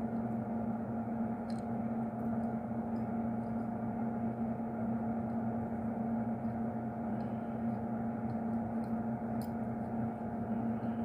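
A steady machine hum made of several constant tones, with a few faint light ticks scattered through it.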